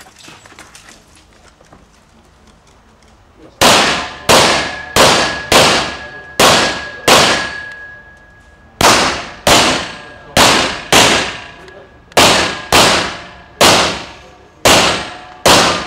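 Pistol fired in rapid practical-shooting strings: about eighteen sharp shots at roughly two a second, starting a few seconds in, with a pause of nearly two seconds midway and a shorter one near the end.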